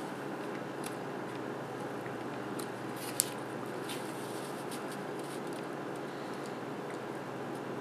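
Small clicks and ticks of a thin flathead screwdriver prying at the snap-on plastic cover pieces of a MakerBot Smart Extruder, with one sharp click about three seconds in as a clip pops loose. A steady background hiss sits under it.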